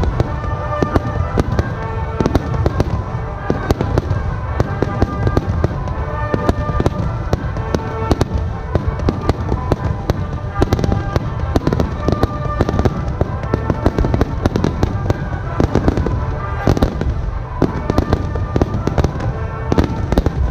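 A dense barrage of aerial firework shells bursting, their bangs coming several a second without a break over a continuous low rumble.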